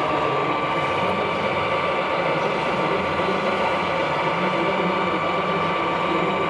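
Steady mechanical running noise with a constant high whine, over the even background din of a large hall.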